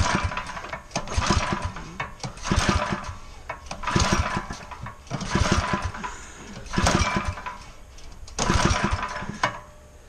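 Small single-cylinder engine being pull-started with its recoil rope, about seven pulls in a row, each a short burst of cranking that never settles into a steady run.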